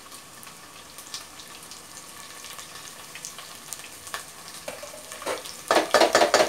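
Hot oil sizzling steadily in a stainless steel pressure cooker as green chillies, curry leaves and ginger-garlic paste go in. Near the end a wooden spatula starts stirring, scraping and knocking against the steel pot several times in quick succession, the loudest sound.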